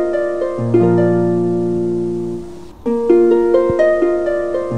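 Music played on plucked strings, harp-like: stepping arpeggios with each note ringing and fading, the phrase starting over about every four seconds.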